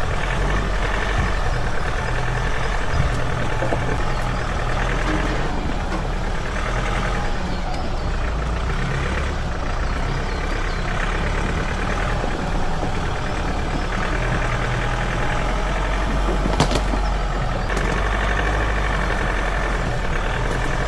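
Ford Ranger Raptor pickup's engine running steadily at low revs as the truck crawls over rough forest ground, with one brief knock late on.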